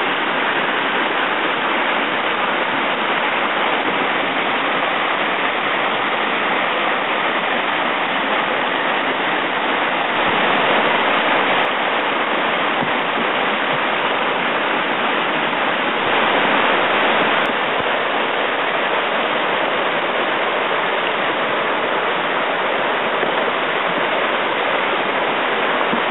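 Whitewater rapids rushing steadily, a constant churning of fast water over rocks that swells slightly twice.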